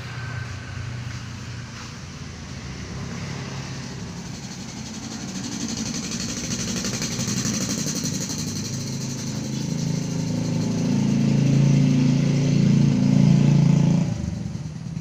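A motor vehicle engine running near the microphone. It builds louder over about ten seconds and then drops away abruptly near the end.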